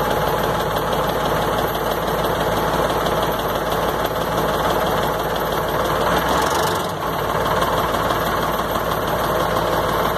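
Diesel truck engine running steadily, with a brief dip in its sound about seven seconds in.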